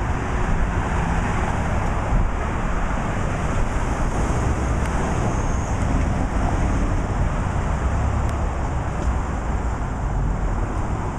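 Steady road traffic: cars driving past on a busy street, with wind rumbling on the microphone.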